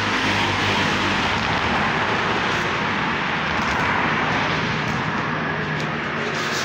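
L3 metal lathe running with its spindle and headstock gearbox turning: a steady whirring noise with a low, even hum underneath.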